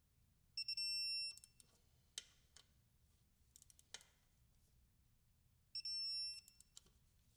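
Electronic torque wrench beeping twice, about five seconds apart, each time it reaches the set torque of 15 ft-lbs on an oil drain plug, with a few faint clicks between the beeps.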